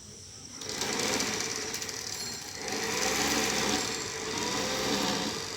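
Small 12 V DC blower fan in a homemade water-bottle hair dryer, starting up when it is wired to a 12 V battery about half a second in and then running, its loudness dipping briefly near the middle.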